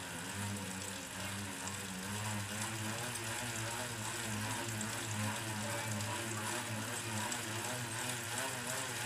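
Indoor bicycle turbo trainer humming as the rear tyre spins on its roller under slow pedalling. The pitch wavers slightly in a steady rhythm.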